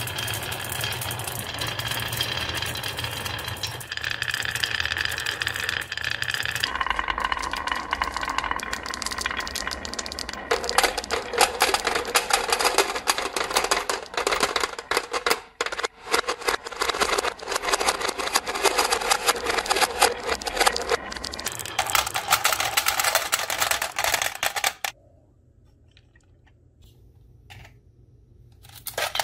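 Marbles rolling down a wooden serpentine marble run: a steady rolling rumble at first, then dense rapid clattering and clicking against the wood and each other from about ten seconds in. It stops abruptly about twenty-five seconds in, leaving only a few faint clicks.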